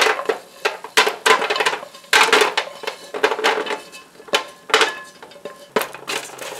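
Wooden spoon scraping sugar-crusted candied almonds out of a stainless steel frying pan, a quick irregular run of scrapes and knocks, with the nuts clattering onto a parchment-lined metal baking sheet.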